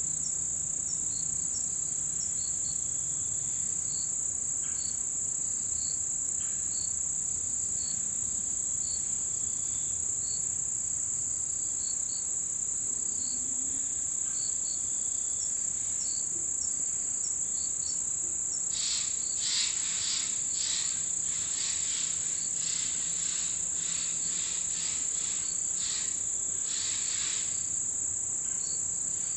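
Autumn insects chirring in an unbroken high-pitched drone, with small evenly spaced chirps over it. About two-thirds of the way in, a louder run of short repeated calls joins in.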